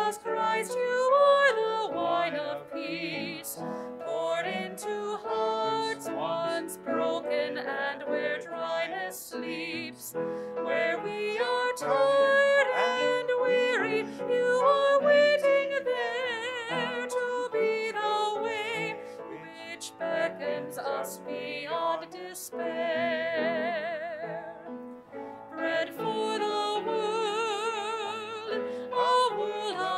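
A woman cantor singing a hymn with vibrato, accompanied by a grand piano.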